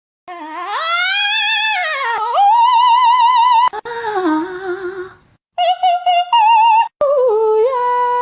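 A high, wavering, voice-like melody: long held notes with a fast wobble, sliding up and down between pitches, with short breaks a few times.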